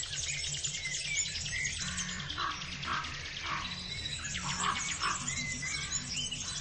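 Birds chirping over a soft background music bed, as a nature-sound backing track.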